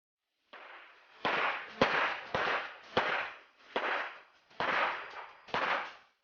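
Smith & Wesson SW1911 Pro Series 9mm pistol firing a string of about eight shots, a bit under a second apart, each with a reverberating tail.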